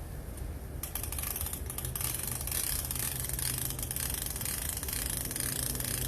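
Rapid, steady ratchet clicking, starting about a second in and running on.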